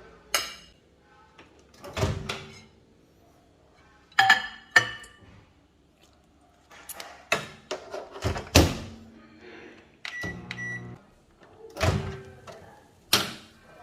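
Kitchen handling sounds: a series of knocks, clicks and light clinks as things are picked up and set down. About ten seconds in comes a brief low hum with two short beeps.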